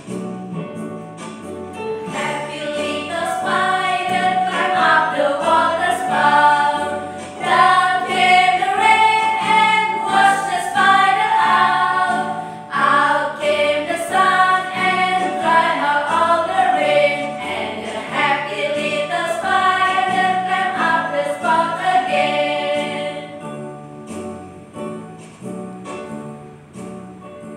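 A group of women singing a children's action song together over keyboard accompaniment with a steady stepping bass line. The singing stops about 23 seconds in, leaving the keyboard playing more quietly.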